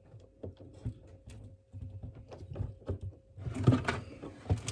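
Scattered small plastic clicks and knocks from handling a freezer's back panel and fiddling at its fan cable connector, turning to a denser scraping rustle about three and a half seconds in.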